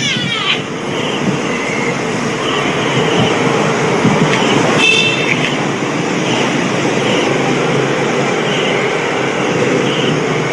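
Steady rumbling noise of a moving vehicle, with a short high-pitched squeal about five seconds in.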